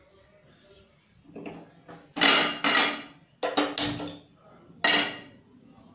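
Frying pan being set down and shifted on a gas stove's metal grate: a run of clanks and scrapes, about six in all, loudest around the middle.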